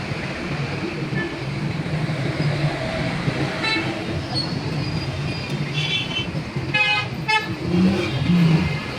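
Vehicle horns tooting several times in short blasts over a steady traffic hum, the two loudest close together about seven seconds in.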